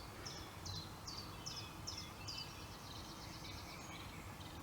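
A small songbird singing faintly: a run of evenly spaced high notes, each sliding down, about two and a half a second, breaking into a quicker trill about halfway through, over a low steady outdoor hiss.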